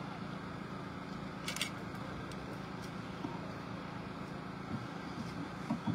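Steady outdoor street ambience with a low hum of distant road traffic, and a brief sharp high hiss about a second and a half in.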